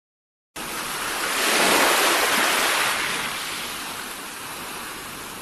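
Water waves washing: a rush of water noise that starts suddenly about half a second in, swells to its peak around two seconds in, then eases off to a steady wash.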